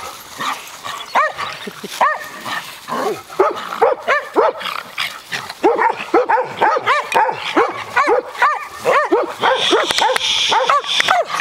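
Dog barking in a rapid, excited series while playing, short yapping barks coming two or three a second with brief pauses.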